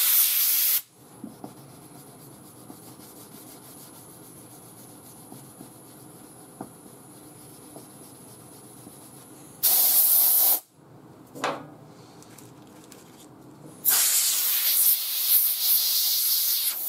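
Compressed-air blow gun blowing sanding dust off a car's painted door panel in three hissing blasts: one ending about a second in, a short one about ten seconds in, and a longer one from about fourteen seconds in. Between the blasts, a sanding pad is heard rubbing faintly on the clearcoat.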